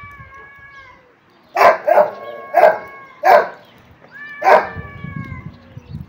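Two tomcats yowling at each other in long, drawn-out calls, a springtime standoff in which they shout rather than fight. A dog barks at them five times in the middle.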